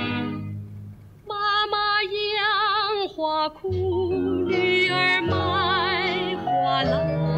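A woman singing a slow Mandarin film-song line with wide vibrato. An instrumental passage dies away first, her voice comes in alone about a second later, and instrumental accompaniment joins under it a little before halfway.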